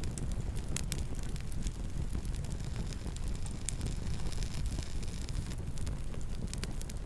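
Campfire burning: a steady low rumble of flames with scattered sharp crackles and pops from the burning wood, a few each second at irregular intervals.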